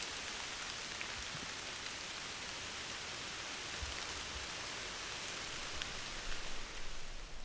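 Steady rain falling in the forest, with a few single drops standing out as faint ticks.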